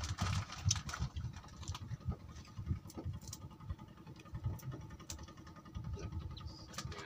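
Wind buffeting the microphone in uneven gusts, with a few faint clicks.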